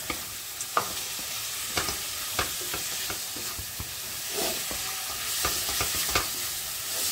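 Pieces of pork sizzling as they fry in a pan with tomato and spice masala. A spatula stirs them, clicking and scraping against the pan at irregular moments over a steady hiss.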